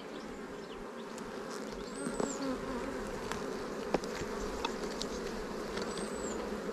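A honeybee colony in an opened hive buzzing as a steady, dense hum, with a few light clicks and taps from the frames being handled, the sharpest about four seconds in.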